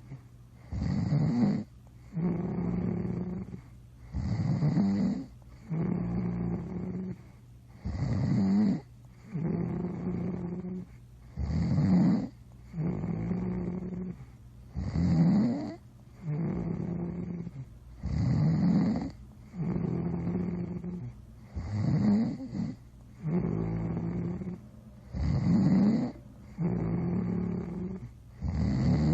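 Snoring in a steady, regular rhythm, about one breath every three and a half seconds. Each cycle has a steady buzzing stretch and a louder, rougher burst.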